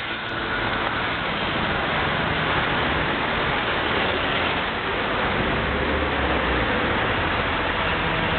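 Steady hiss and rumble of city road traffic, with a heavier low rumble about five seconds in, like a vehicle passing close.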